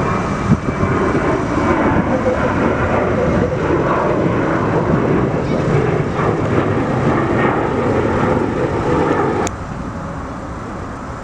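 Jet airliner engines running loud and steady. The sound drops off abruptly about nine and a half seconds in, leaving a quieter background.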